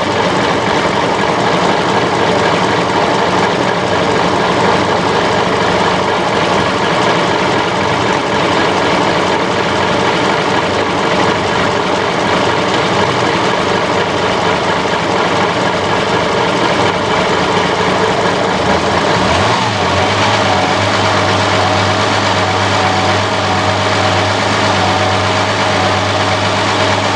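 Marine engine running steadily. About twenty seconds in its note changes, and a strong steady low hum and a higher tone set in and hold.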